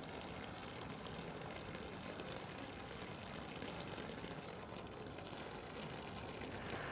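Firework fountain burning, a steady rushing hiss of sparks with scattered small crackles.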